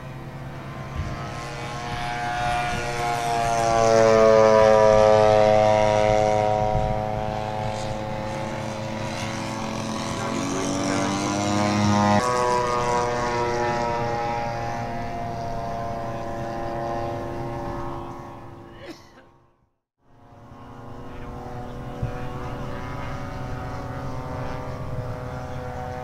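Propeller-driven radio-control model airplane engine passing by in flight, swelling and then dropping in pitch as it goes past: loudest about four seconds in and again about twelve seconds in. The sound cuts out briefly at about twenty seconds, then a steady engine drone resumes.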